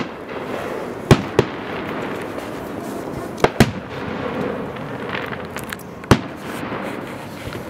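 Fireworks going off: sharp bangs about a second in, twice in quick succession a little past three seconds, and once more past six seconds, with faint crackling between them over a steady background murmur.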